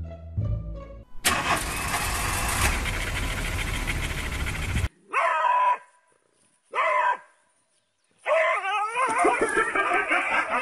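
A loud rushing noise for about four seconds that cuts off suddenly, then a small dog barking twice, then a longer wavering cry for about three seconds.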